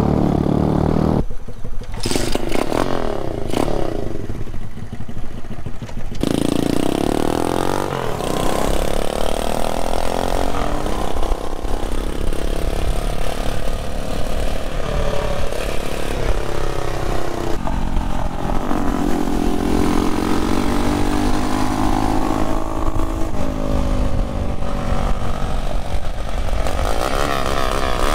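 Honda Chaly minibike with a star-shaped exhaust pipe being ridden, its small engine note repeatedly rising and falling as it revs up and eases off. A few sharp clattering knocks sound in the first few seconds.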